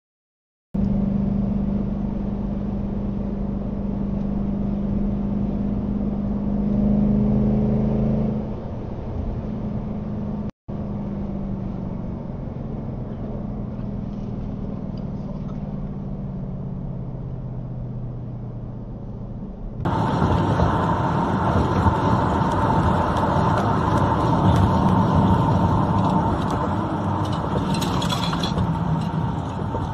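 Car engine and tyre noise heard from inside moving cars: a steady engine hum that swells briefly about seven seconds in, a short dropout about ten seconds in, then louder, rougher road noise with a steady whine from about twenty seconds on.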